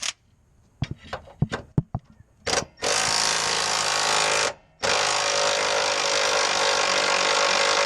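A power tool, an impact wrench, running in two long bursts while it loosens the rear subframe bolts. A few sharp clicks and a brief first burst come before them.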